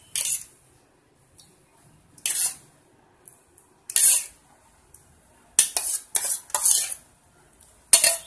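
A spoon scraping thick curd out of a steel bowl, in short separate scrapes with pauses between and a quick run of several about two-thirds of the way through.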